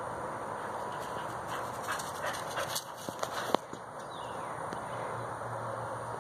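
Squirrel chattering from a tree: a quick, uneven run of sharp clicking chucks, with one louder snap about three and a half seconds in.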